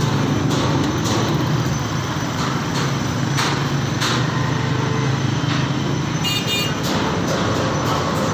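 Steady roadside traffic noise: a constant low engine hum with passing vehicles and scattered knocks, and a brief high-pitched beep about six seconds in.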